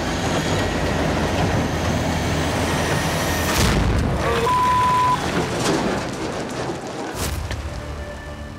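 Heavy rock truck's diesel engine running with a deep, steady rumble. About three and a half seconds in comes a sudden deep boom, then a half-second one-tone bleep, and another sudden burst about seven seconds in.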